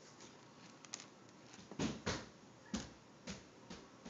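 A few short, soft clicks and knocks from a baby picking Cheerios off a plastic high-chair tray and eating them, the two loudest about two seconds in.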